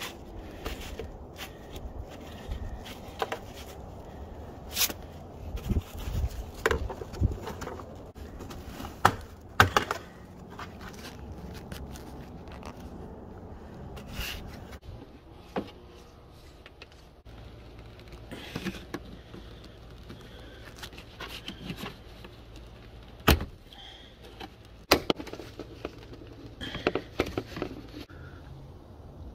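Hyundai Kona's plastic interior trim panels being pulled at and handled: scattered clicks, knocks and scrapes, with a few sharper, louder clicks.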